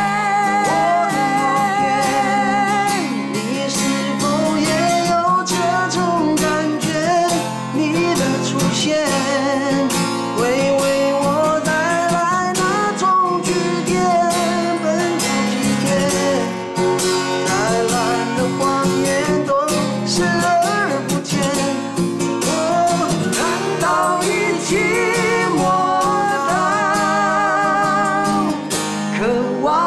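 Men singing a slow pop-rock ballad with long held notes and vibrato, over a strummed acoustic guitar.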